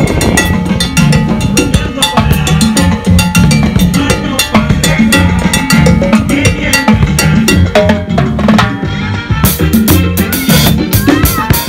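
Live salsa percussion: congas slapped by hand and chrome timbales, cymbals and bass drum struck in a fast, steady rhythm, over music with sustained low bass notes.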